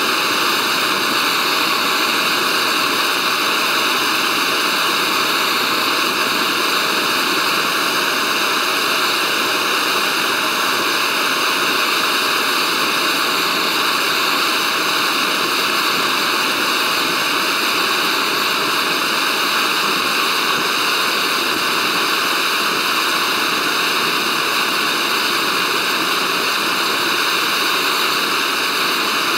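Gas canister camping stove burner hissing steadily at full flame.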